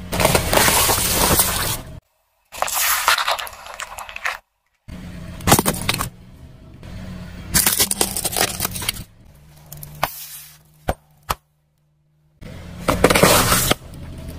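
Car tyre rolling over packs of instant noodles and snack packets, crushing the dry contents with bursts of crunching and crackling. Several separate crushes follow one another, split by short gaps of silence.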